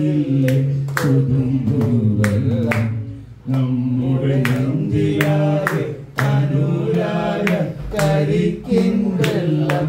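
A man singing a melodic song into a microphone, amplified through a loudspeaker, with long held notes and short breaks between phrases.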